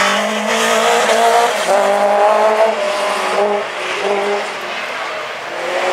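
Rallycross race cars' engines running hard on the circuit, their notes holding and stepping in pitch, a little quieter about two-thirds of the way through.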